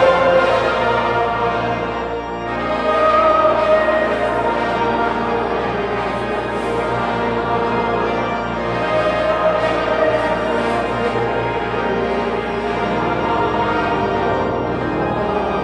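Choir singing sacred music with instrumental accompaniment.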